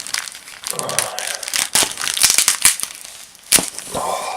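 Packaging crinkling and tearing as a parcel is unwrapped by hand, a dense run of irregular crackles with a sharp click about three and a half seconds in.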